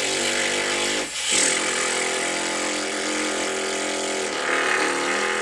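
A person's lips flapping in a steady buzzing lip trill ('brrr'), blown with one hand pressing the cheek: a lip-relaxation warm-up for trumpet playing. Two long breaths of it, broken briefly about a second in, at a fairly steady pitch.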